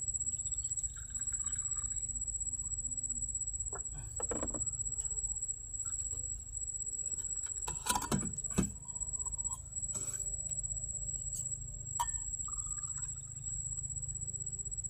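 Night riverside ambience: a steady high-pitched insect whine over a constant low rumble, with a few scattered knocks and clicks, the loudest about eight seconds in.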